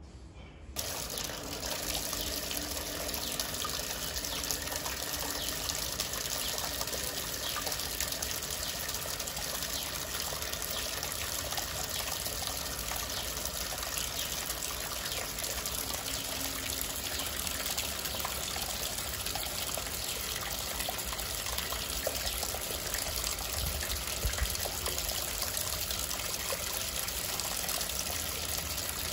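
Water running steadily from a tap, coming on suddenly about a second in.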